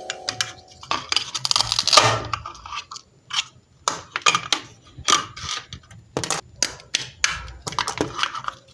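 Fidget toys handled by hand: irregular sharp clicks and taps with scraping and crunching noises, without a steady rhythm.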